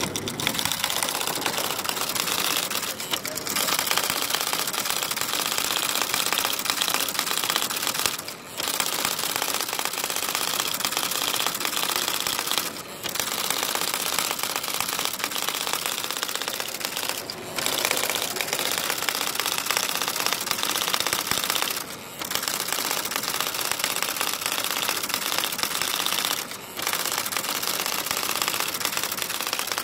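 Electric typewriter typing in a rapid, continuous run of keystrokes, broken by brief pauses about every four to five seconds.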